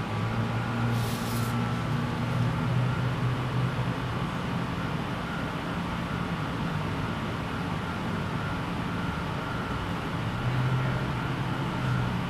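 Steady low mechanical hum with a droning tone that swells a little near the start and again near the end, and a short hiss about a second in.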